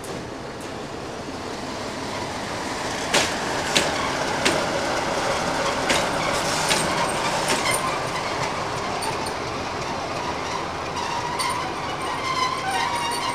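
Sulzer LDE 2100 diesel-electric locomotive rolling past. Its wheels knock sharply over rail joints several times, and a high wheel squeal comes in near the end.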